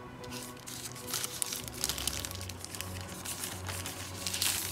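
Plastic packaging crinkling and tearing as it is handled, in irregular crackly bursts with the loudest near the end, over background music.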